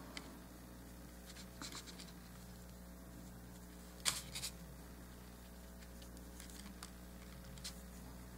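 Faint scratching of an eyeshadow brush being worked in powdered chalk on a paper plate and brushed onto a small polymer clay piece, with a sharper scrape about four seconds in. A steady low hum runs underneath.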